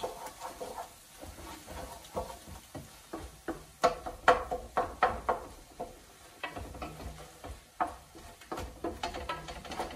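A wooden spoon stirring tomatoes and onions frying in a large aluminium pressure-cooker pot, with irregular scrapes and knocks against the pot over a faint sizzle.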